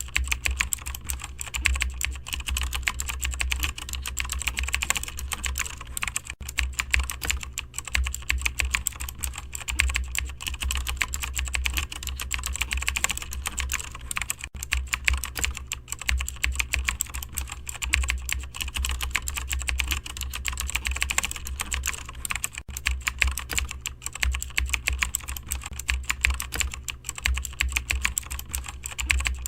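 Continuous fast typing on a computer keyboard, many key clicks a second without a break, over a steady low hum.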